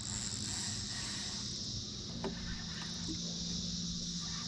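Steady high-pitched insect chorus, with a faint low hum underneath that shifts in pitch about two seconds in and a single small click soon after.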